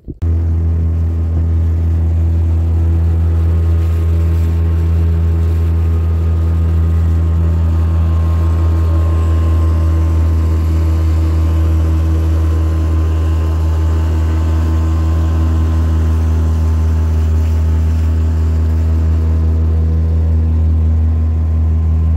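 Small boat's outboard motor running at a steady cruising speed, one constant low pitch that does not change, as the boat moves along the river.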